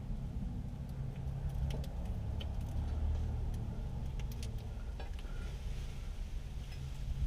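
A vehicle engine running steadily with a low rumble, with light clicks and rattles over it.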